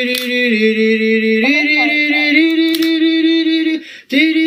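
A man's voice singing long, steady held notes, moving up or down in pitch from one note to the next. It stops briefly near the end and starts again on the same note.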